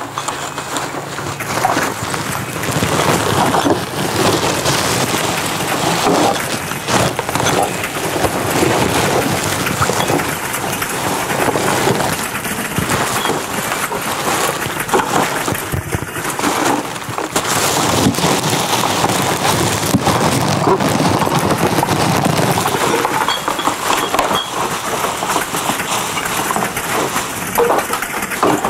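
Continuous dense clattering, rattling and crackling, with many small knocks and rustles close together.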